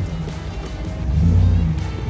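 Background music with a bass line that swells about once a second.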